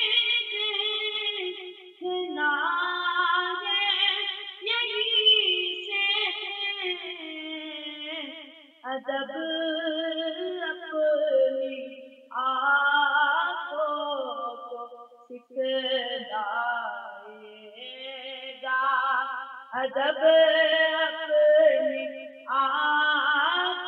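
A man singing an Urdu naat in long, ornamented phrases with short pauses between them, a lower backing voice running beneath the lead. No instruments or beat can be made out.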